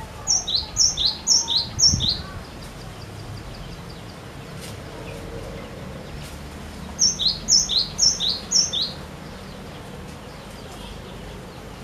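Cinereous tit (glatik batu) singing two short bursts of song, one near the start and one about seven seconds in. Each burst is four quick repeats of a two-note phrase, a high note dropping to a lower one.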